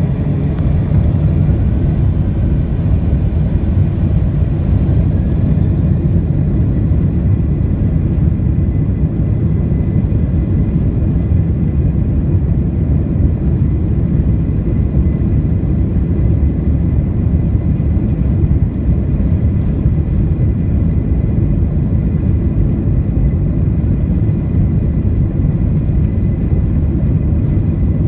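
Steady low rumble of a Boeing 767-300ER's engines and airflow heard inside the passenger cabin, swelling slightly in the first second and then holding level.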